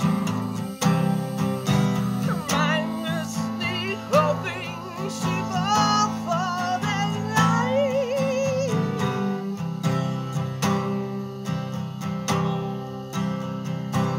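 Acoustic guitar strummed steadily in an instrumental passage of a song. From about two seconds in until about nine seconds, a wavering lead melody with slides and vibrato rises over the strumming.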